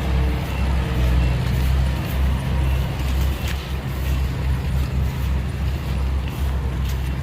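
Heavy diesel engine running steadily at a deep, low pitch, with faint reversing beeps about once a second and a few short knocks.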